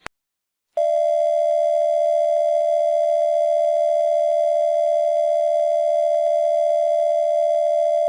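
Steady electronic alert tone: the attention signal of a mock Emergency Alert System test broadcast, held at one unchanging pitch. It starts about a second in, after a brief click.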